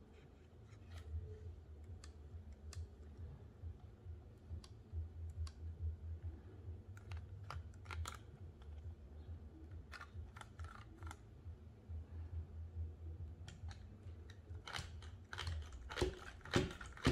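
Light plastic clicks and taps from a built LEGO 4x4 off-roader being handled and turned over in the hands, with a cluster of louder knocks near the end as the model is set down on a wooden tabletop. A low steady hum runs underneath.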